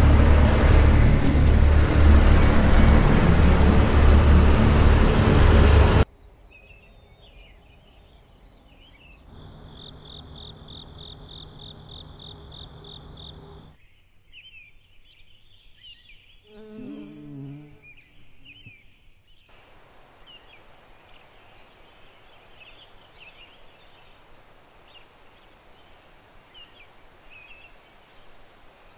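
Vehicle driving on a dirt road, loud steady engine and road noise that cuts off suddenly about six seconds in. Then quiet outdoor ambience: a pulsing high trill for a few seconds, one short falling call, and faint scattered bird chirps.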